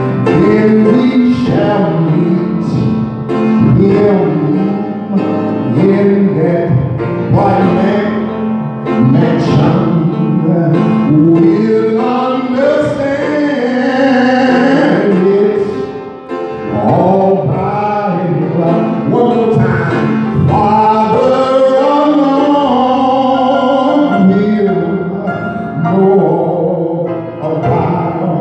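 A man singing a gospel song solo into a handheld microphone, in long sung phrases with a short break about halfway through.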